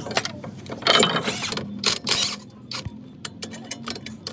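Metal tool work on a wheel hub: clanks and scrapes, then a quick run of sharp ratchet-like clicks in the second half, over a faint steady hum.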